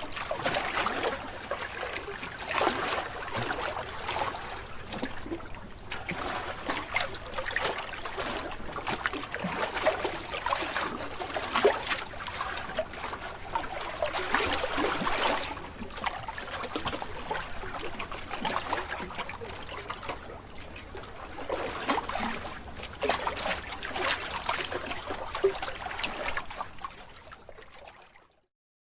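Water splashing and trickling in irregular surges, with many small clicks; it fades out near the end.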